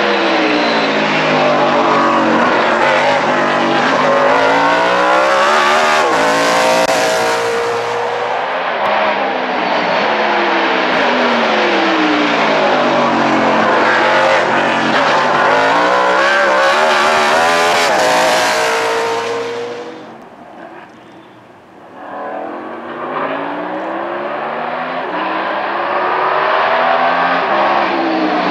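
NASCAR stock car's V8 engine at racing speed, its note falling and rising again and again as the driver lifts, brakes and accelerates through the gears. About three quarters of the way through the sound drops away sharply for a couple of seconds, then an engine builds and revs again.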